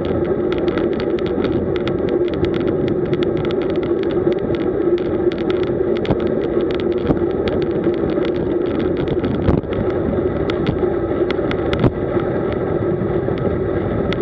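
Wind and road noise from a road bike ridden at about 35 km/h on tarmac: a steady rush with a hum, overlaid with dense rattling clicks from the mounted camera shaking.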